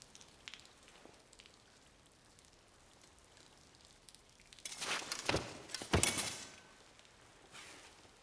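A wounded man collapsing onto a stone floor: a scuffle of cloth and movement, then two heavy thuds about five and six seconds in, with faint crackles before.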